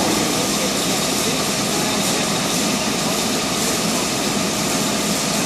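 Steady industrial machinery noise in a welding shop: a continuous broad hiss over a low hum, holding an even level with no breaks.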